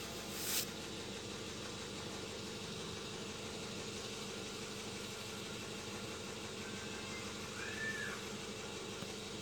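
Toyota Yaris engine idling, a steady low hum heard from inside the cabin. There is a short hiss just after the start and a brief rising-and-falling squeak about eight seconds in.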